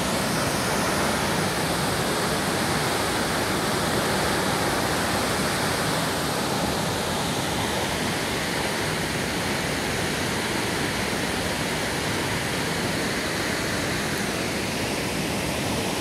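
A tall waterfall's steady, unbroken rush of falling water.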